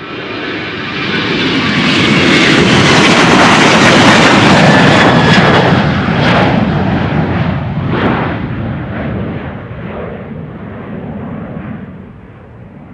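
Boeing 737-800's twin CFM56-7B turbofans at takeoff thrust as the jet climbs out past the listener. The roar swells to a loud peak a few seconds in, with a high whine falling slightly in pitch, then fades steadily as the aircraft climbs away.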